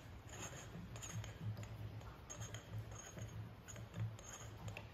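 Faint small metallic ticks and clicks of the SnowPeak M60 air rifle's modular silencer being twisted and unscrewed by hand.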